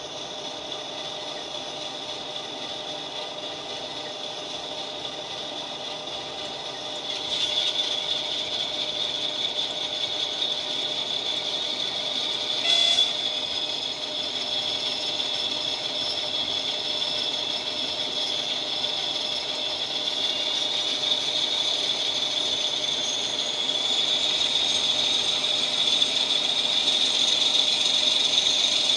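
Diesel locomotive sound from the model's LokSound V5 sound decoder, played through its small speaker. The engine note steps up about seven seconds in, a brief loud blast comes about thirteen seconds in, and the engine revs with a rising whine in the second half.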